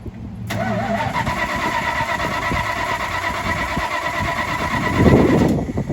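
1984 Dodge Ram's starter cranking the hard-starting engine for about five seconds, a steady whine with an even, rhythmic chug. Near the end the engine fires with a loud low burst through its straight pipe, and the cranking stops.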